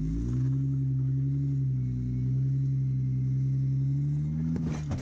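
Jeep Wrangler JK engine running steadily under load as it crawls over boulders: a steady low drone that shifts only a little in pitch. A few brief knocks come near the end.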